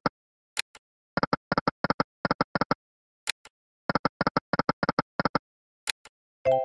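Electronic sound effects of the EGT 100 Burning Hot video slot: three spins, each starting with a sharp click and followed by a quick run of short, identical ticks as the reels stop, with no win. A brief chime comes near the end.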